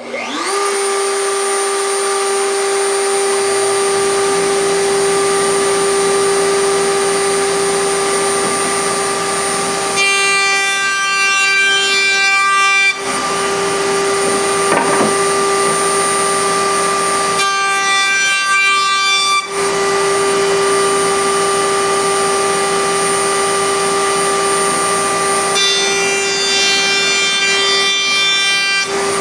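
Router starts up suddenly and runs at a steady high whine, with a dust collector's low drone joining a few seconds in. Three times, for two to three seconds each, the sound changes as the piloted trim bit cuts the edge trim of an oak plywood shelf.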